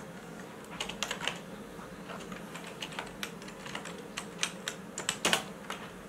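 Computer keyboard keys clicking as someone types: irregular keystrokes, with a louder cluster of clicks near the end, over a faint steady low hum.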